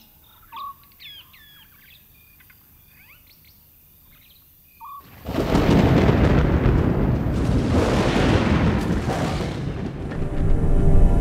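Faint chirping bird calls, then about five seconds in a sudden, loud, long rolling rumble of thunder that lasts several seconds. Music fades in near the end.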